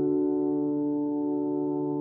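Background instrumental music: one held chord slowly fading, with no new notes.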